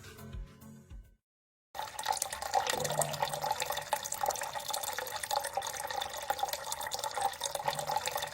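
Water trickling and splashing steadily in a tabletop waterfall lamp's fountain, starting after a brief silence about two seconds in.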